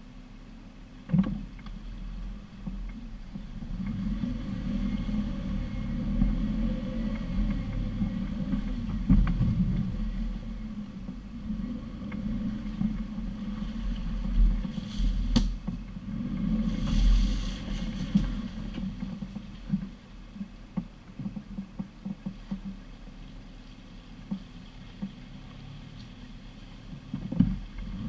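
Off-road 4x4 crawling along a rutted, muddy forest track: a steady low engine hum with knocks and jolts from the body and suspension over the ruts, and two brief hissing swishes around the middle.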